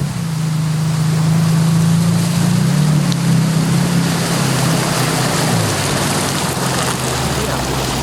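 Yamaha jet ski engine running at speed over the rush of water and wind, its pitch dropping about two thirds of the way through as the throttle eases off.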